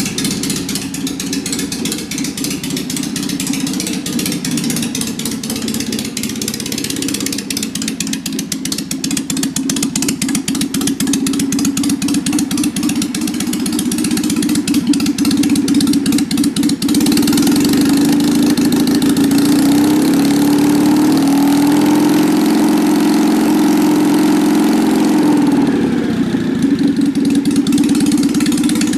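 Citroën 2CV Charleston's air-cooled 602 cc flat-twin engine running on a test bench after a service. It runs steadily, gets louder about halfway through, and its revs rise a little and drop back near the end.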